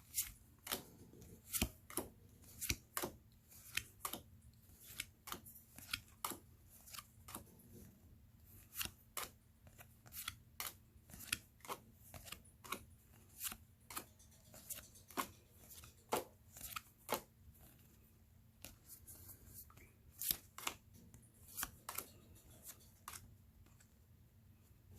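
Game cards being flipped and laid down on a table one after another, each giving a sharp snap or tap, about one to two a second with a couple of short pauses.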